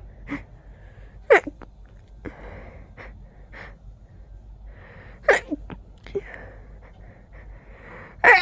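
A person sneezing in a fit: a loud, sharp sneeze about a second in and another about five seconds in, with short catching breaths between them and a third sneeze starting at the very end.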